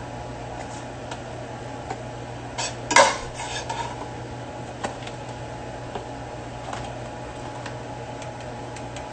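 Kitchen utensils and cookware clinking and clattering: a loud clatter about three seconds in, then scattered lighter clinks, over a steady low hum.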